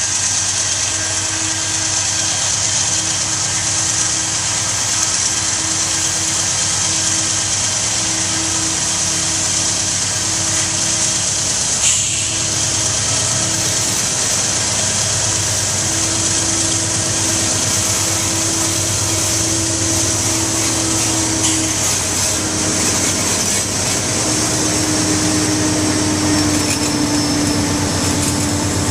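GE C40-9W diesel-electric locomotive's 16-cylinder engine working hard under load, hauling a dead freight train up a steep grade. It runs steadily as the locomotive approaches and comes alongside near the end.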